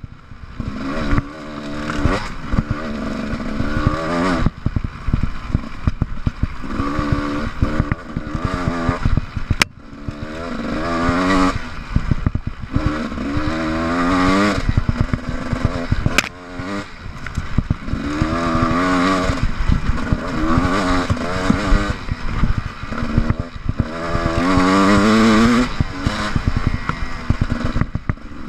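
GasGas EC 300 two-stroke enduro motorcycle engine revving up and easing off over and over as it is ridden over rough ground. The pitch climbs with each burst of throttle and falls back, with a couple of sharp knocks from the bike over bumps.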